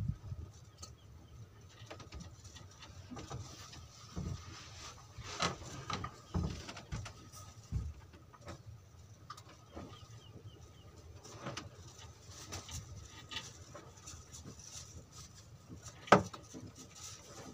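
Scattered light knocks and clicks around a small wooden fishing boat, with one sharper knock near the end and a faint steady tone underneath.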